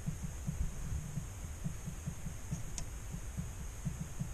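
Z-axis carriage of a 3018 CNC knocking as the spindle is rocked back and forth by hand: dull, quick, irregular knocks from the play still left between the new Z-axis bearings and their 8 mm rods. A steady faint high whine runs underneath, and a single sharp click comes about halfway through.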